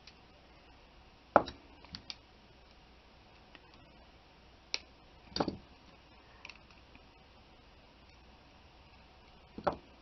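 Scattered sharp clicks and light knocks from metal jewelry pliers being handled and set down on a cloth-covered table. The loudest comes about a second and a half in, with a few more near the middle and one near the end.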